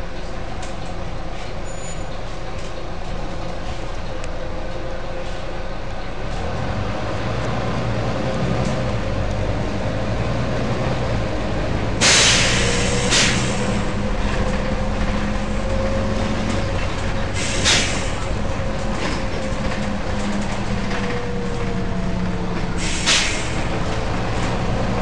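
Volvo B9TL bus's six-cylinder diesel engine running, its hum growing louder about a quarter of the way in, with a faint whine above it. Four sharp bursts of compressed-air hiss from the bus's air system break in: about halfway, again a second later, then twice more, the first the longest.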